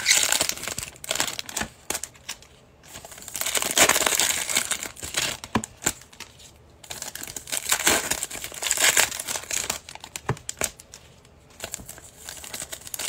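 Foil Panini Prizm football card packs being torn open and crinkled by hand, in about four bursts of crackling with short quieter gaps between.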